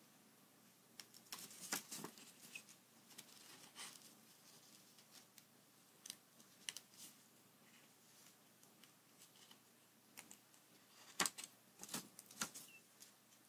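Small fine-pointed scissors snipping paper in quick, faint, irregular snips while cutting fine detail freehand. A cluster of louder snips comes about two seconds in, and another near the end as the paper sheet is handled and turned.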